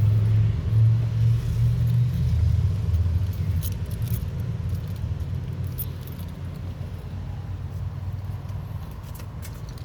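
A motor vehicle's engine running with a low, steady hum, loudest at first and then gradually fading. A few light metallic clinks come over it.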